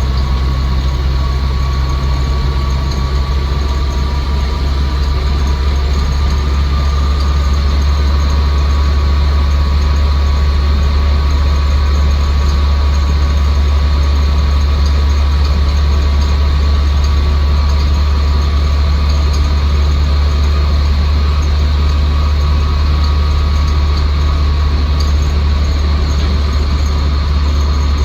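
1962 Land Rover Series IIa 109's 2.25-litre four-cylinder petrol engine and drivetrain heard from the cab on the move: a deep steady drone with a thin high whine over it.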